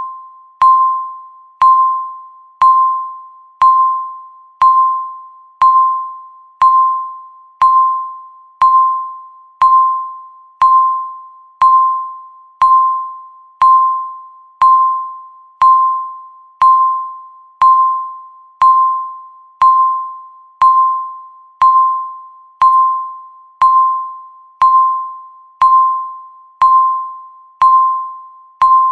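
Countdown timer beep sounding once a second: a single high tone with a sharp start that fades away before the next.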